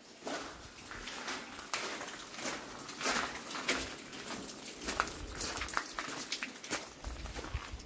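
Footsteps crunching on a wet gravel path, about two a second, with rain pattering.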